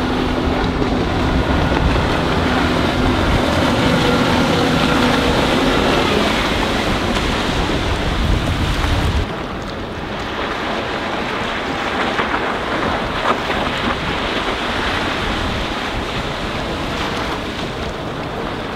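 Mercruiser 4.3-litre V6 sterndrive of a Rinker 192 bowrider running at speed, a steady engine drone heard over heavy wind rumble on the microphone for the first few seconds. About nine seconds in the wind rumble cuts off, leaving a quieter hiss of wind and water with the engine fainter.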